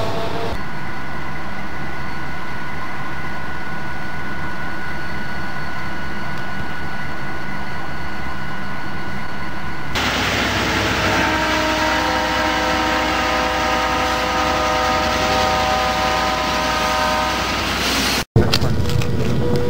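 Diesel trains running with their horns sounding: first a steady horn tone as a passenger train approaches, then, after an abrupt cut, a freight train rumbling past while its multi-note horn chord sounds for several seconds. The sound cuts out briefly near the end.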